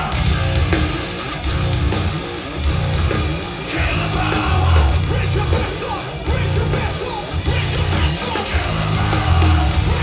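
Live heavy rock band playing loud through a large open-air sound system, with a repeating riff over a heavy pulsing low end and yelling on top.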